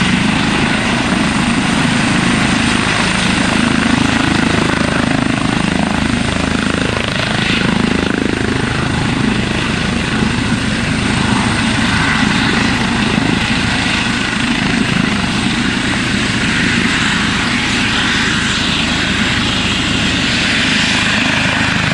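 Eurocopter EC135 twin-turbine helicopter in a low hover, its rotors and turbines running at a steady, loud level with a thin high whine over the rotor noise.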